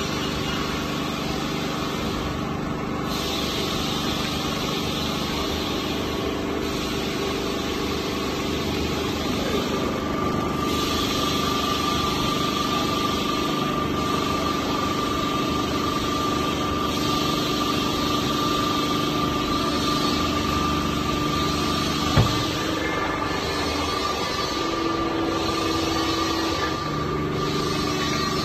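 Hydraulic power unit running steadily with a steady hum, pumping oil through the hose to a two-stage hydraulic rescue ram as it extends against a load cell. A single sharp knock comes about three-quarters of the way in, and the hum's pitch shifts near the end.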